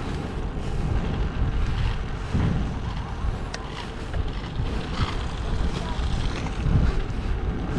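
Wind rushing over the microphone and a low, uneven rumble from a bicycle being ridden, picked up by a GoPro gripped in the rider's teeth on a bite mount, with a few light clicks.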